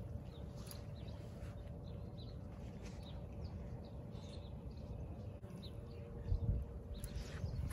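Small birds chirping in short, scattered calls over a low wind rumble on the microphone, with a brief low thump about six seconds in.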